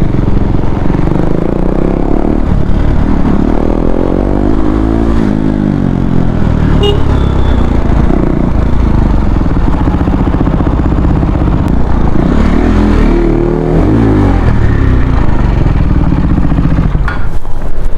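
KTM Duke 390's single-cylinder engine running under way, its revs rising and falling as the bike accelerates and slows.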